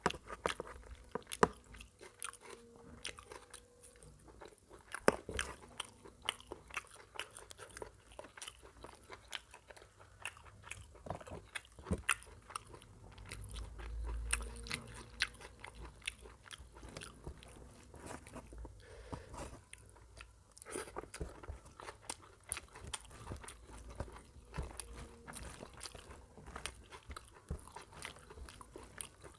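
Close-miked chewing of mouthfuls of curry-soaked rice and mutton, with many sharp, wet mouth clicks and smacks.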